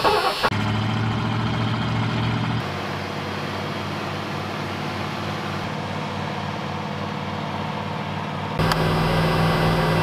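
Old pickup truck's engine idling just after a cold start: a fast idle at first, dropping to a lower, quieter idle about two and a half seconds in, then louder again near the end.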